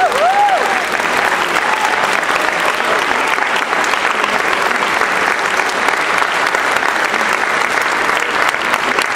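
Audience applauding steadily at the end of a dance number, with a brief rising-and-falling whoop from the crowd just at the start and some voices mixed into the clapping.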